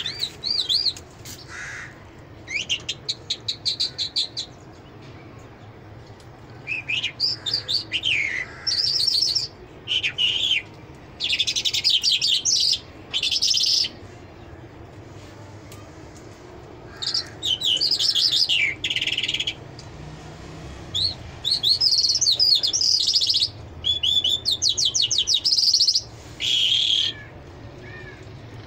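Caged Mashadi Jal songbird singing high, rapid trilling and twittering phrases, each lasting about half a second to two seconds, one after another with short pauses between them. A faint steady low hum runs underneath.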